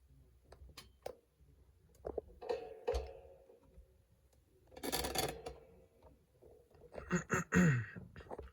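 Small metal lock parts being handled on a work surface: scattered light clicks and taps, a brief scrape about five seconds in, and a quick run of clicks near the end.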